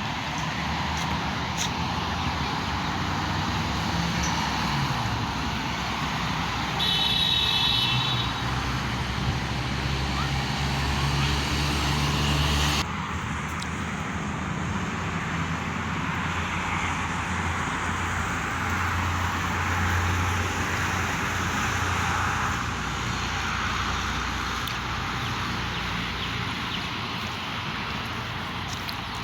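Steady road traffic noise, with vehicle engines humming as they pass. A brief high-pitched tone sounds about seven seconds in.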